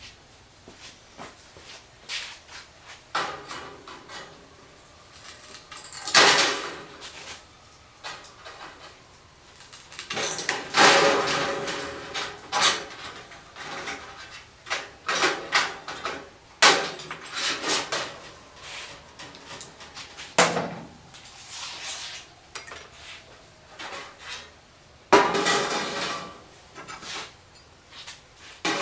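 Thin sheet steel being handled and worked: irregular clanks and metallic clatters, the loudest about 6, 11, 16 and 25 seconds in, some ringing briefly.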